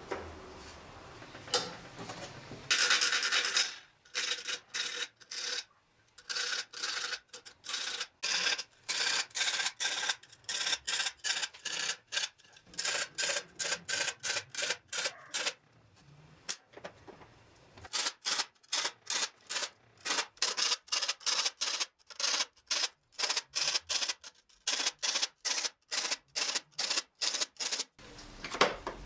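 Hand file sharpening the steel teeth of a hand saw clamped in a vise. It goes in short, repeated strokes, about two to three a second, with a brief pause about halfway through.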